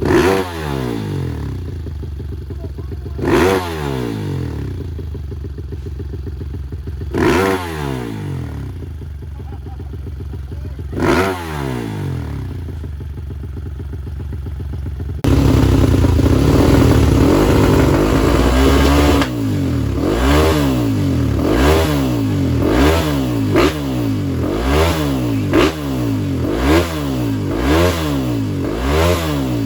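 Four-stroke trail motorcycle engines revved in place. One idles with a quick throttle blip about every four seconds. After a sudden cut about halfway, a louder bike idles for a few seconds, then is blipped about once a second.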